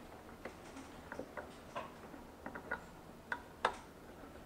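Small screwdriver turning a screw into the side of a tiny box camera's mounting rack: a string of light, irregular clicks, with two sharper ones near the end.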